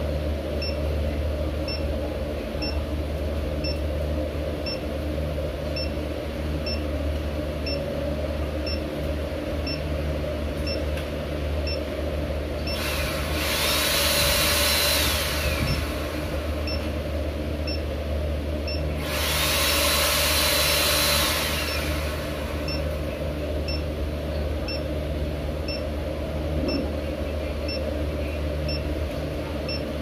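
Xiaomi Mi Electric Scooter Pro 2 giving a short electronic beep about once a second, the nag beep of a scooter not yet activated in the Mi Home app. Twice a louder whirring noise of a few seconds swells in over it, its whine rising, holding and falling, over a steady low hum.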